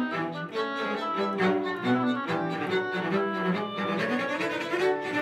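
Bowed string instruments playing classical music, a quick passage of short notes that change several times a second, as an example of a fast tempo.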